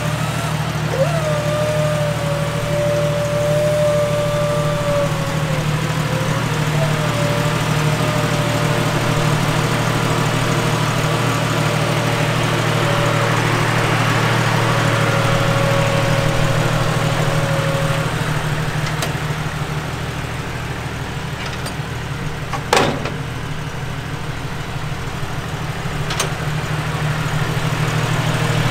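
Forklift engine idling steadily, with a hydraulic whine that changes pitch a few times as the forks lift one front wheel of the Jeep, then stops. A single sharp knock comes about three-quarters of the way through.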